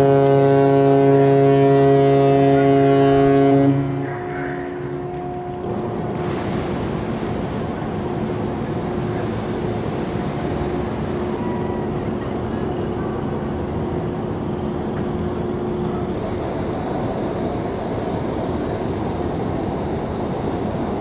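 The cruise ship Pacific Venus's whistle sounds a long, deep blast, a departure signal on leaving port, and cuts off about four seconds in. A steady rushing noise follows.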